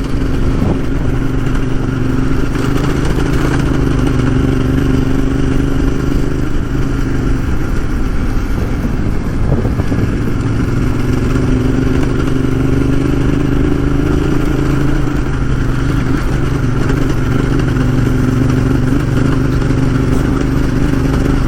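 Motorcycle engine running steadily while riding, with wind noise over it.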